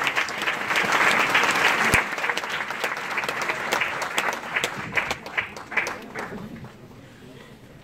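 Audience applauding: dense clapping that thins to scattered single claps and dies away about seven seconds in.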